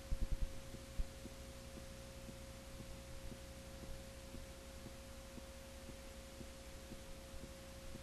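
Faint steady single-pitched tone with low hum and hiss on an old videotape's audio track under colour bars, with a quick run of clicks right at the start and one more about a second in.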